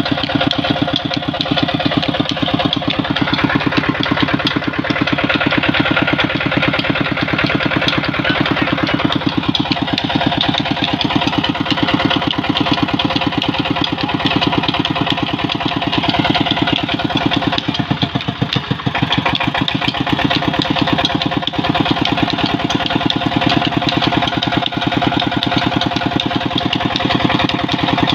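Small horizontal single-cylinder diesel engine running steadily under belt load, with a rapid, even knock from its firing strokes.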